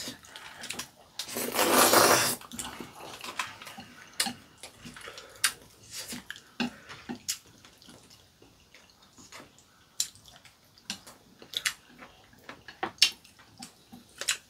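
Spaghetti slurped loudly about a second in, a long wet suck lasting about a second. After it come scattered wet chewing and lip-smacking sounds and sharp clicks of chopsticks against plates.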